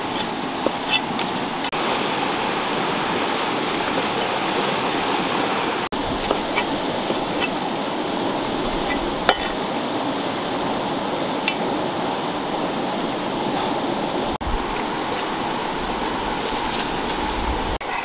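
Steady rush of a flowing stream, with scattered light taps of a knife blade chopping fried egg on a wooden stump.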